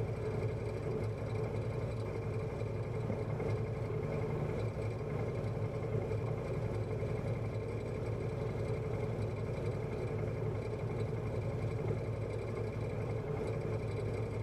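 Arctic Cat Wildcat side-by-side's V-twin engine idling steadily while the machine stands still, heard from inside the cockpit.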